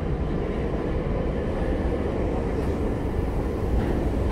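Tokyu 5050 series commuter train running underground, heard from inside the car: a steady, even rumble of wheels on rail and running gear.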